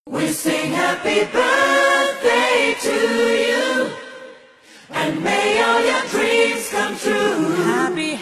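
Background music with a choir singing: one phrase fades out about four seconds in, and a new phrase starts just before five seconds.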